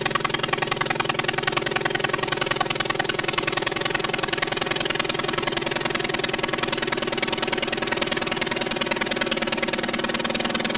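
Light aircraft's piston engine running steadily at constant power, with a fast, even pulse.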